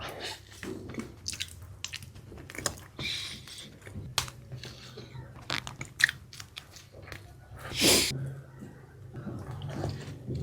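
Close-miked chewing and biting of a steamed bun (bakpao), with irregular wet mouth clicks and smacks. One louder, longer rush of noise comes about eight seconds in.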